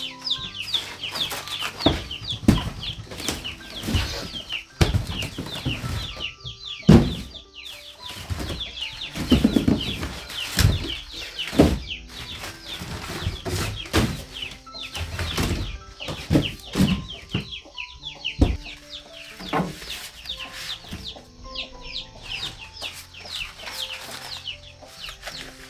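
Chickens with chicks peeping rapidly and continuously in high, falling notes, with scattered knocks and rustles.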